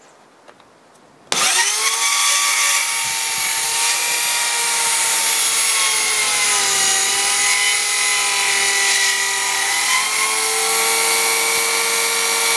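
A 5-inch compact circular saw starts about a second in and runs at a steady high whine while cutting a wooden deck board along an existing kerf, set for a 1.5-inch depth; its pitch sags a little midway under the load of the cut and then recovers.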